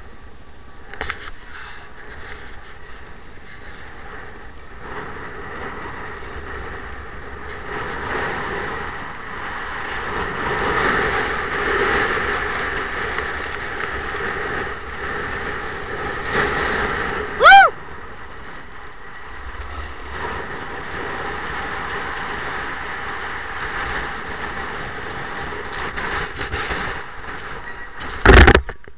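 Snowboard sliding and carving down groomed, ridged snow: a steady scraping hiss that grows louder for a few seconds about a third of the way in. About halfway through a short, loud high squeal sounds once, and near the end there is a loud thump as the rider comes down onto the snow.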